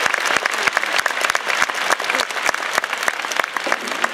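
Large crowd applauding, a dense, steady patter of many hands clapping.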